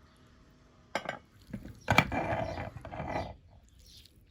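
Meat grinder working through green pumpkin, a mechanical crunching and grinding: a short burst about a second in, then a louder stretch of grinding lasting just over a second.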